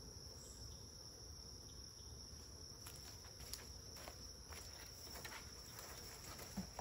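Steady, faint, high-pitched trilling of crickets in a night chorus. From about three seconds in, scattered light clicks and knocks sound over it.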